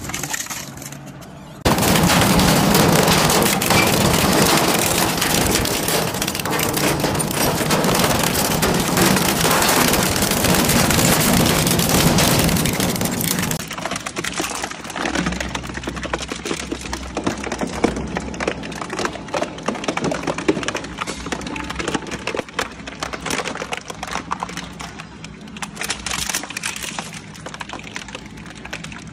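Industrial twin-shaft shredder crunching through material. Loud, continuous cracking and splintering as a wooden plank is torn apart. About halfway through it turns quieter, with a low hum under scattered crackling and crunching as plastic parts are ground up.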